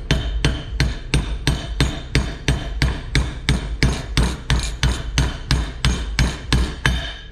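Hammer striking a socket used as a driver, steady metal-on-metal taps about three a second, pressing a new ball bearing into its bearing carrier.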